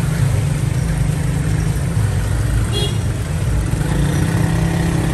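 Water poured from a plastic bucket into a large aluminium cooking pot full of raw goat heads and trotters, over a steady loud low motor rumble.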